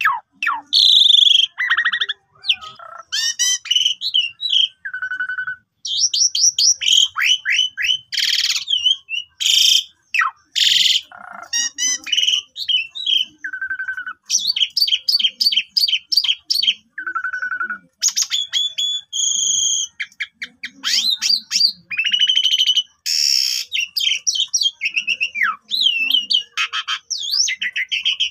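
Asian pied starling (jalak suren) singing a long, varied song of clear whistles, falling slurred notes, fast runs of repeated chattering notes and several harsh rasping notes, with only brief pauses.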